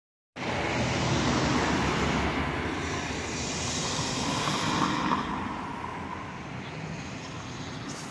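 A vehicle going by in the street: a steady rushing noise that is loudest over the first few seconds and then fades.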